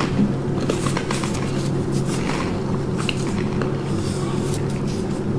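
A steady low hum, with small soft clicks and squishes of chewing a bite of communion bread.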